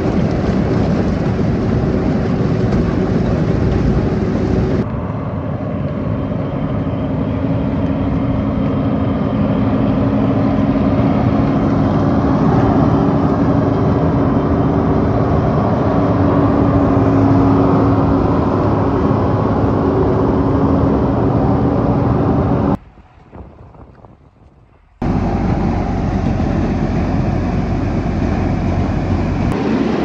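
John Deere 4240 diesel tractor and John Deere 300 pull-type corn picker running steadily while picking ear corn. Near the end, after a brief drop-out, a PTO-driven corn elevator runs as it carries ears up its chain.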